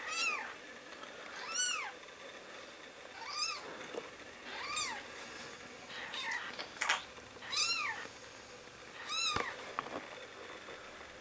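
Newborn kitten mewing: short, high-pitched mews that rise and fall in pitch, about seven of them, one every second and a half or so.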